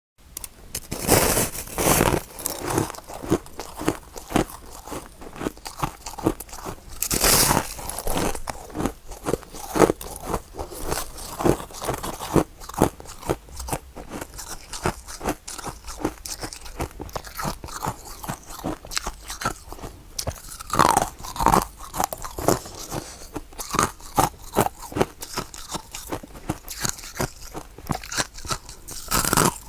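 Close-up crunching and chewing of powdery freezer frost (snow ice), a steady run of quick crunches with several louder bites. It starts suddenly after near silence.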